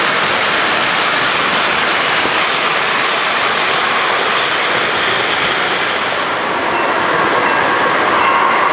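O-gauge model train cars rolling past on three-rail track, a steady loud rumble and clatter of metal wheels on rails. A steady whine comes in near the end.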